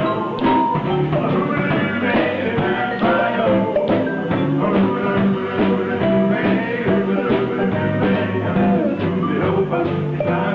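Live rock and roll band playing a song, with electric guitar and drum kit.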